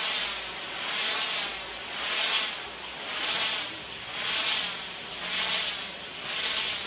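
Firework fountain (gerb) on a moving set piece spraying sparks with a steady hiss that swells and fades about once a second.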